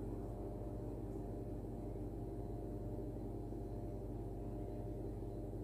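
Steady low hum of background noise with no distinct events; the spices sliding onto the plate make no audible sound.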